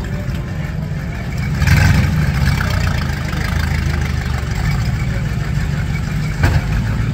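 V8 demolition derby car engines running, swelling briefly in a rev about two seconds in, with one sharp bang about six seconds in.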